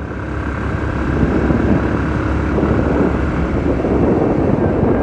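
Motorcycle running at road speed, with wind and road noise rushing over the microphone, growing a little louder over the few seconds.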